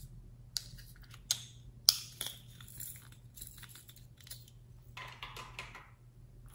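Three sharp clicks of small hard objects, then a light clatter, followed near the end by a soft rustling patter as a handful of pink confetti glitter is sprinkled onto fluffy slime.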